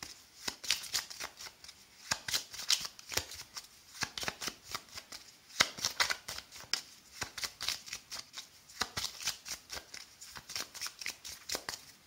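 A small deck of Lenormand cards shuffled by hand: quick, uneven flicks and rustles of cards slipping against each other, in spells with short pauses. It stops near the end.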